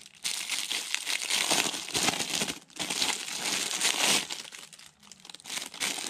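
Clear plastic wrap crinkling as hands peel it off a motorcycle alarm disc lock. It goes on almost without a break for about four seconds, eases off, then crinkles once more near the end.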